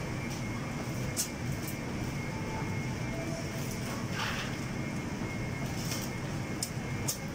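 Steady rumble of a commercial kitchen, with extraction fans running and a faint constant high tone, broken by a few sharp clicks and clinks of metal and one brief hiss about four seconds in.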